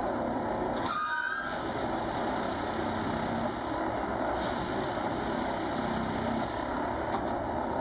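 Plasser & Theurer 08-4x4/4S-RT ballast tamping machine running steadily as its tamping tines pack ballast under the sleepers, with a brief higher tone about a second in.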